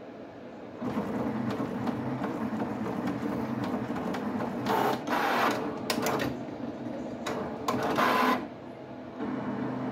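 HP 7550A pen plotter drawing its demo plot: its servo motors whir as the pen carriage and the paper move, with small clicks. There are louder, fast sweeps about five seconds in and again near eight seconds.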